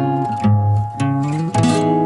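Background music: guitar chords strummed, with a final chord near the end left ringing.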